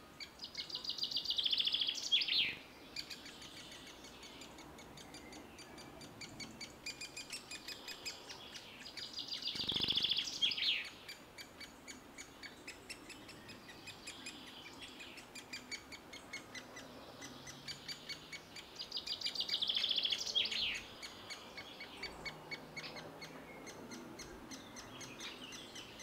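Great spotted woodpecker nestlings begging in their tree-hole nest: a constant fast, high chatter that swells three times, about nine seconds apart, into loud two-second bursts that build up and then break off.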